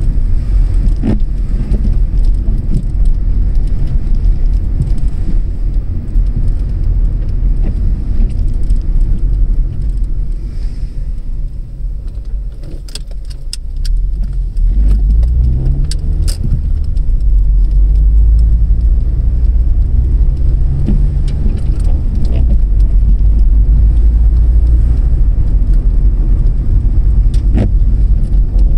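Car driving on a suburban road, heard from inside the cabin: a steady low rumble of engine and tyres that eases off about twelve seconds in, then the engine picks up again with a rising note as the car pulls away. A few short clicks sound over it.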